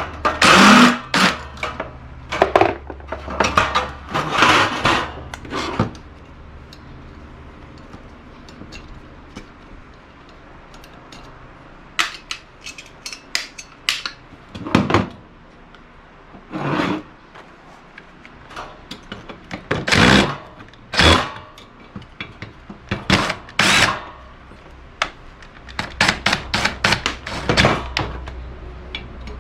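Dismantling a Rinnai gas wall heater: short runs of a power drill/driver alternate with clicks and clanks of its sheet-metal parts being handled and pulled off. The sounds come in clusters separated by quieter pauses.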